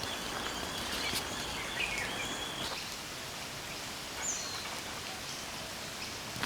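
Outdoor ambience: a steady background hiss with a few short bird chirps, and a high steady note that stops a little under three seconds in.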